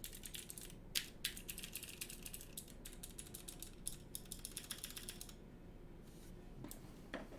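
Rapid, dense plastic clicking and clacking of a mechanical keyboard, stopping about five seconds in, followed by a few scattered clicks.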